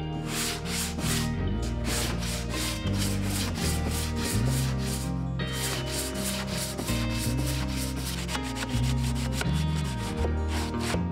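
Sandpaper on a hand sanding block rubbed back and forth over the bare wooden boards of an old butter churn, about three strokes a second, with a brief pause about five seconds in. Background music with low bass notes runs underneath.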